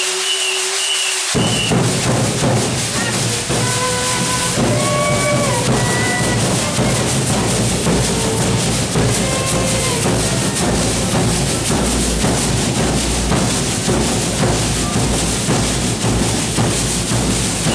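Congado Moçambique percussion: drums and shaken round metal rattles start abruptly about a second in and keep a dense, driving rhythm. A singing voice rises over it for several seconds in the first half.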